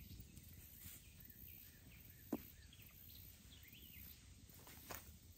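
Near silence: quiet riverside ambience with a low background rumble and a few faint bird chirps. A single sharp knock comes a little over two seconds in, and a softer click comes near the end.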